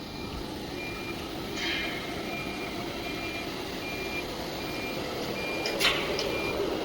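Short high electronic beep repeating steadily, about one every three-quarters of a second, over the steady hum of the CNC router as its spindle is jogged down. A brief hiss comes about two seconds in and a sharp click near the end.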